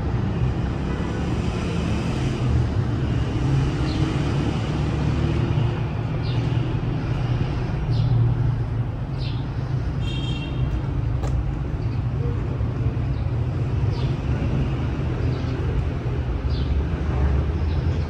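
Steady low rumble of city traffic, with scattered short high chirps.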